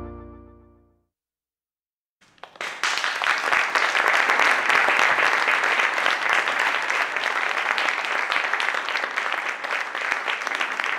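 Closing music fading out, a moment of silence, then a theatre audience breaking into steady applause about two seconds in.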